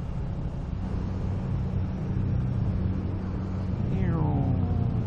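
Motorcycle engine running steadily during a ride, heard through a helmet microphone. A voice makes a falling call about four seconds in.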